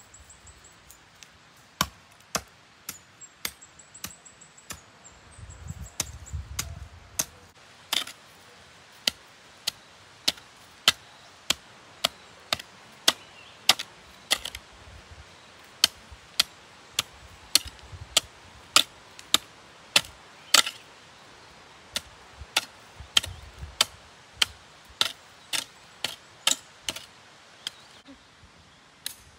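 Steady series of sharp chopping or knocking strokes, about two a second.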